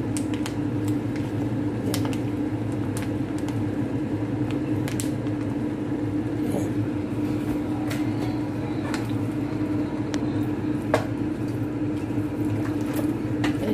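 Pork pieces sizzling in a stainless steel pan, with scattered crackles and pops over a steady low hum. Tomato paste is squeezed onto the meat and stirred in with a spatula, with one sharp knock about eleven seconds in.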